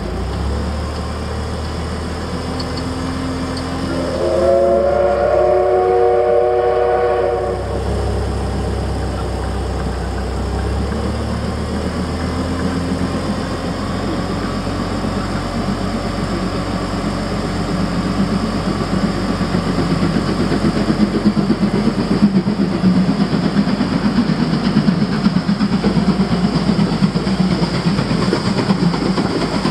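Steam whistle of the C11 325 steam locomotive blowing once for about three seconds, a few seconds in. The locomotive and its train then come closer and grow louder, with a rapid pulsing over the last ten seconds.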